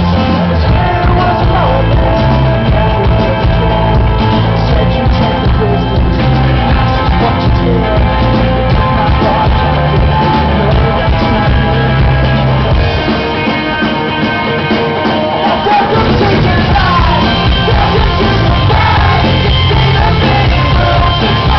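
A rock band playing live and loud, with a singer; the low end drops away for a couple of seconds a little past the middle, then comes back in.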